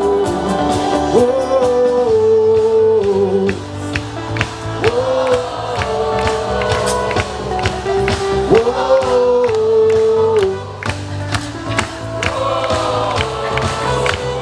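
Live band music with long held sung notes over a steady beat.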